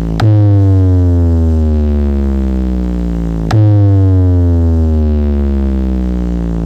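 Electronic sound-check track blasting from a large DJ speaker-box rig: a deep bass tone that slides slowly downward in pitch and is struck anew twice, about three seconds apart.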